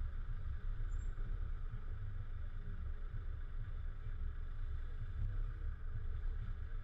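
Volvo FH 440 truck's 13-litre straight-six diesel running, a steady low rumble.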